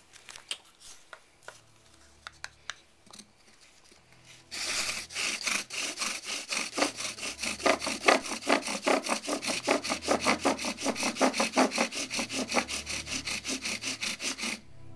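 Bow drill working a mullein and cedar spindle-and-hearth set: the spindle grinds against the hearth board with a rhythmic, scratchy rub, about four strokes a second, building hot dust for a friction-fire ember. A few faint knocks come first, the drilling starts about four seconds in, and it stops suddenly just before the end.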